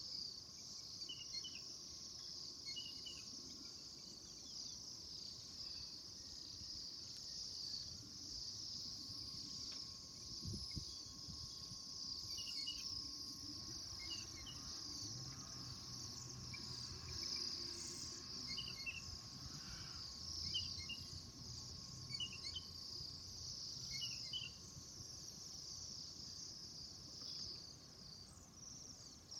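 A flock of small birds chirping all at once, a dense, continuous high-pitched chatter of many overlapping short calls, with now and then a few separate lower chirps standing out.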